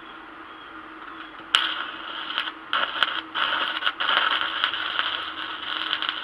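Electric arc welding on steel: the arc strikes about a second and a half in with a sudden crackling sizzle, cuts out briefly a few times, then burns steadily. A low steady hum runs underneath throughout.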